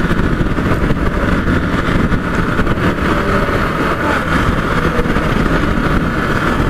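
Motorcycle cruising steadily at about 45–50 km/h: a constant engine drone mixed with heavy wind rumble on the rider's microphone.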